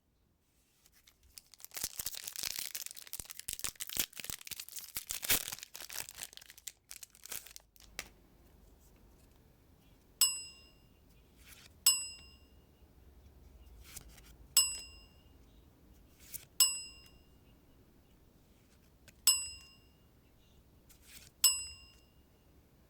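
Foil booster-pack wrapper being torn open and crinkled for several seconds. Then a bright bell-like ding sounds six times, about every two seconds, each ringing briefly and fading.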